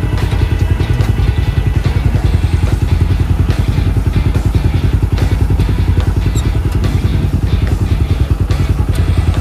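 Race UTV's engine idling loudly, with a rapid, even pulsing beat that stays steady.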